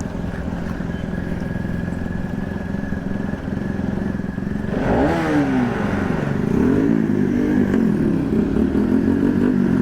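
Motorcycle engine running steadily while riding. About halfway through, a louder sound joins, with pitch that falls and then wavers up and down.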